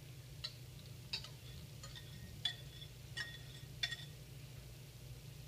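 About six light glass clinks, roughly one every two-thirds of a second, each ringing briefly: a wire whisk knocking against glass mixing bowls as wet strawberry-and-egg mixture is poured into the dry ingredients.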